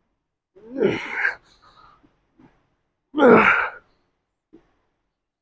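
A man's loud, strained grunting exhales from lifting effort, one per rep: twice, about two and a half seconds apart.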